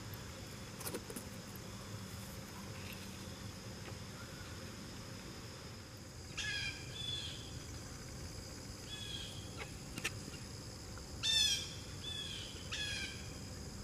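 A steady, high-pitched chorus of crickets. Over it come several short, harsh bird calls: a pair about six and a half seconds in, one near nine seconds, and a cluster of three between eleven and thirteen seconds.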